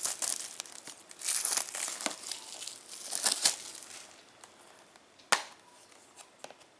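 Blu-ray case and its packaging being opened by hand: crinkling and rustling for about four seconds, then a single sharp click a little after five seconds in.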